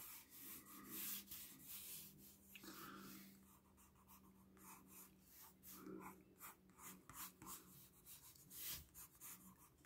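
Faint scratching of a colored pencil sketching on paper, in short, irregular strokes.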